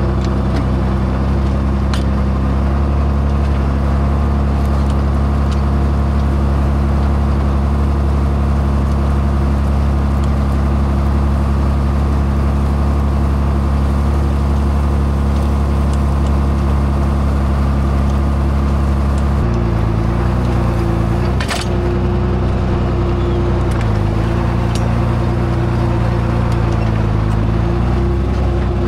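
John Deere tractor's diesel engine running steadily while plowing. About two-thirds of the way through its note changes, and a short sharp knock follows a couple of seconds later.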